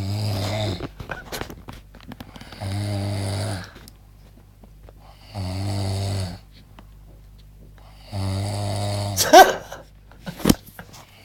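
A man snoring loudly, four long snores coming regularly about every two and a half seconds. Near the end a brief, louder sharp burst cuts in over the fourth snore.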